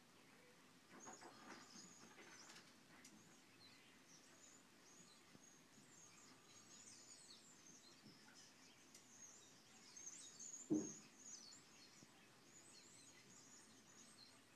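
Faint, high, thin calls from a flock of American robins, many short notes scattered throughout. A single soft thump about eleven seconds in.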